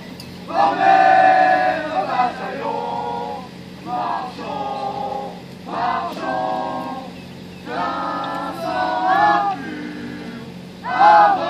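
A group of voices, men and women, singing or chanting together in unison in short held phrases, each about a second long with brief breaks between them.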